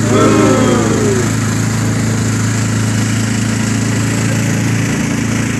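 Engine of a motorized bangka (outrigger boat) running steadily at an even pitch, a low droning hum.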